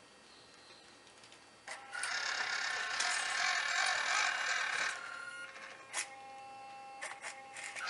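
Small electric motor and gearbox of a 1/18-scale RC truck whirring as it drives along towing a second model truck. The whir starts about two seconds in, is loudest for the next three seconds, then drops to a quieter steady whine with a couple of sharp clicks.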